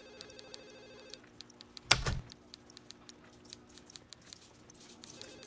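Telephone ringing with a trilling ring: one ring ends about a second in and the next begins near the end. A single loud thud comes about two seconds in, and faint clicks run throughout.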